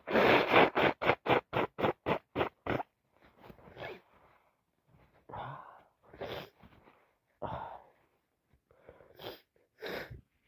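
A person with allergies sneezing and sniffing: a quick run of about a dozen short, loud nasal bursts in the first three seconds, then about six separate ones a second or so apart.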